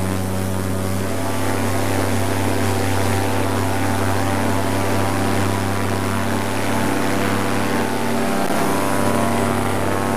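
Paramotor engine and propeller running steadily through the foot-launch takeoff run and lift-off, with a brief change in pitch about eight seconds in.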